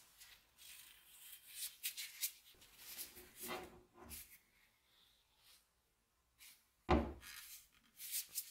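Gloved hands turning and handling a rusty hatchet: soft rubbing and rustling of the rubber gloves against the rusted steel head and grip, with one dull knock about seven seconds in.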